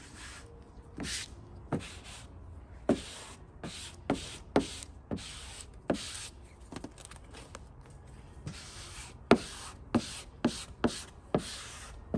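A hand squeegee rubbing across matte vinyl wrap film on a truck hood, working out an air bubble trapped under the film. It makes about fifteen quick scraping swipes at uneven intervals.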